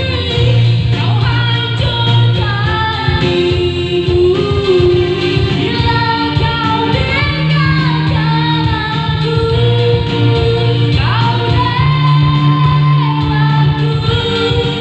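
A woman singing a slow melody of long held notes into a microphone, accompanied by a Yamaha electronic keyboard.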